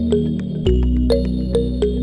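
Background music: a synthesizer tune of short plucked notes, about three a second, over a sustained bass that shifts about two-thirds of a second in.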